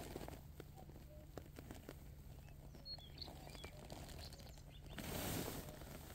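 Faint outdoor ambience with a few short bird chirps and scattered small clicks. A brief rush of noise swells and fades about five seconds in.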